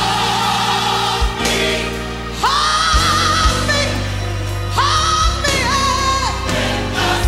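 Gospel choir singing with instrumental backing; a high voice holds long notes, sliding up into them about two and a half and five seconds in.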